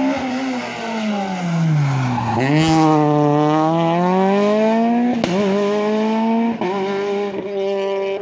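Peugeot 208 rally car's engine falling in pitch as it brakes into a hairpin, then revving hard out of it with the tyres squealing. It shifts up about five seconds in with a sharp crack, shifts again, then pulls away at a steadier note.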